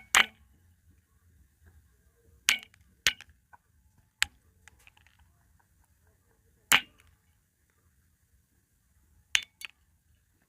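Seed pods bursting open in water, each one a sharp pop: about eight pops at irregular intervals, two close together at the start, more around two to four seconds in, one near seven seconds, and a quick pair near the end.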